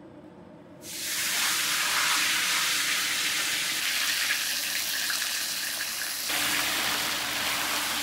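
Minced meat hitting hot oil in a large cast-iron kazan: loud sizzling and hissing that starts suddenly about a second in as the meat lands, and keeps frying steadily.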